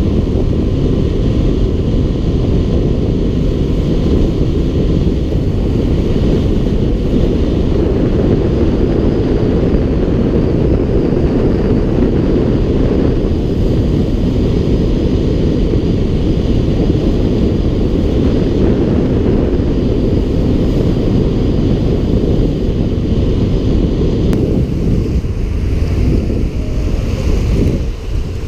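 Speed boat under way at speed: its engine and hull noise on the water are mixed with heavy wind buffeting on the microphone, in a steady low rush. The noise eases and turns uneven over the last few seconds.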